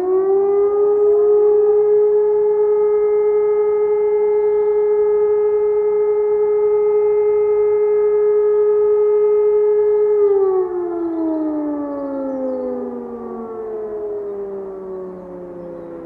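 E57 electromechanical motor siren finishing its spin-up, then holding a steady tone for about ten seconds. It then winds down with a slowly falling pitch and fading volume.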